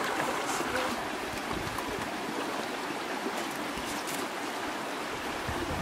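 Shallow stream running over rocks, a steady rushing and rippling of water.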